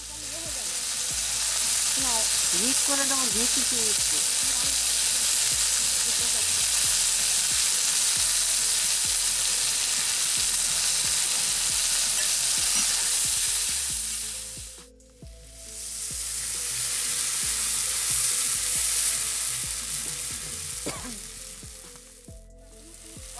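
Oil sizzling steadily as whole fruits fry in an aluminium kadai. The sizzle cuts out briefly about two-thirds of the way through, then comes back.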